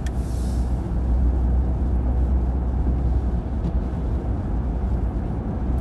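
Car driving, heard from inside the cabin: a steady low rumble of engine and tyres, with a short hiss in the first second.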